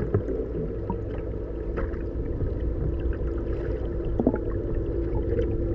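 Muffled underwater sound from a submerged camera: the sportfishing boat's engine heard through the water as a steady low rumble with a steady hum, and scattered small clicks.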